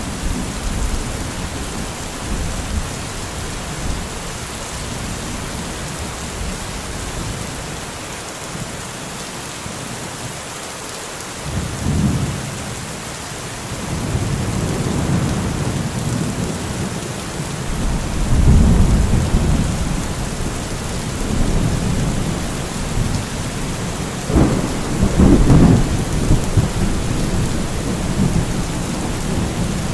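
Steady rain falling, with several rolls of low thunder rumbling through it in the second half, the loudest a few seconds from the end.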